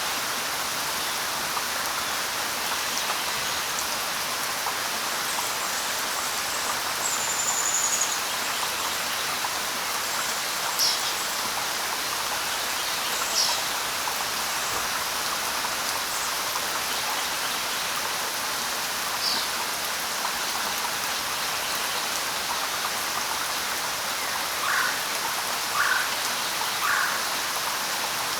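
Steady light rain, an even hiss, with a few short bird calls scattered through it: a high whistle about a quarter of the way in, brief high chirps in the middle, and three lower notes near the end.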